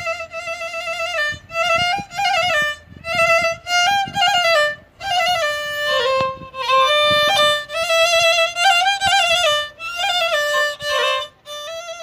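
Background music: a solo violin melody, opening on a long held note with vibrato and then moving in short phrases with brief breaks between them.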